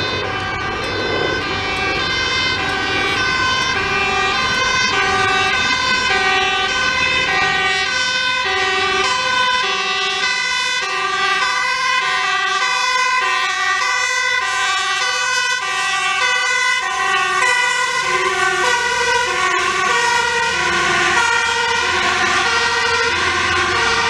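Two-tone sirens of a fire-service hook-lift truck and its accompanying service van, alternating high and low about once a second. The sirens sound continuously as the vehicles approach, and truck engine and tyre noise swells near the end as they pass.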